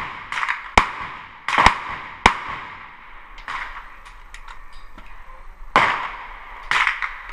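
A short-barrelled VZ-58 Sporter rifle in 7.62x39mm firing a quick string of shots in the first two and a half seconds, three of them sharp and loud. More gunshots with a longer, duller ring follow about 3.5, 6 and 7 seconds in, with a few light clicks between.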